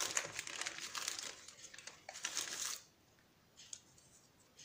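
Baking paper rustling and crinkling under the hands as a sheet of dough is rolled up, for about three seconds, then a faint brief rustle.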